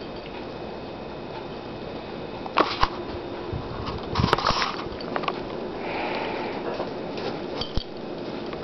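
Small dogs and a kitten scuffling on bedding, with sniffing and rustling of the covers. A few sharp knocks and bumps break in, two about two and a half seconds in and a louder cluster around four seconds in.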